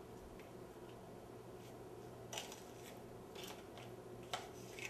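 Faint handling of raw climbing perch on a ceramic plate while turmeric and salt are rubbed in by hand: a few soft clicks and rubs of fish and fingers against the plate.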